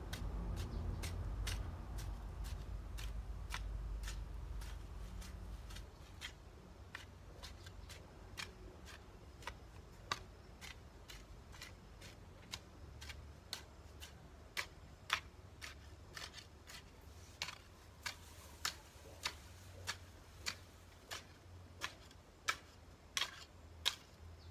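A garden hoe chopping into soil in short, sharp strikes about every two-thirds of a second, getting louder in the second half. A low rumble lies under the first six seconds or so.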